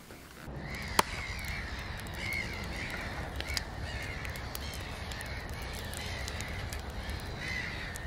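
Sound-effect bed for a fire-and-axe rating card: a burning fire's steady low rumble and crackle, with a sharp crack about a second in and repeated harsh bird calls over it.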